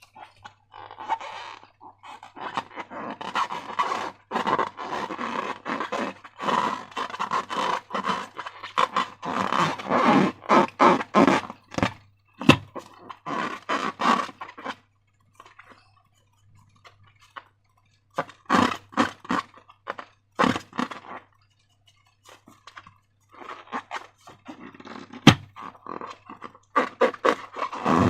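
Slime being squished and worked by hand: irregular wet squelching and crackling, with a couple of short pauses midway.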